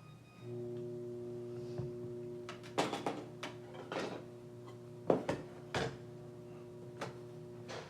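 Sharp metallic clicks and taps, about seven of them, from handling the parts of an Abus Wavy Line padlock while it is taken apart. Under them a steady low hum starts about half a second in and stops near the end.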